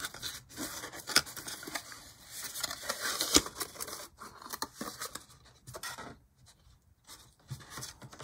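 Small cardboard candy box being torn open and unfolded by hand: irregular tearing, scraping and rustling of thin paperboard, with a quieter pause past the middle.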